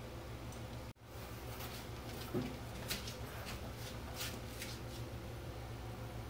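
Light clicks, taps and a soft knock as a stainless steel sink is handled and set down into a countertop cutout, over a steady low hum.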